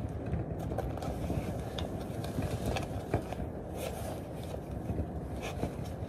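A steady low rumble of wind on the microphone, with light scrapes and ticks as bootlaces are pulled tight through the eyelets of tall lace-up boots.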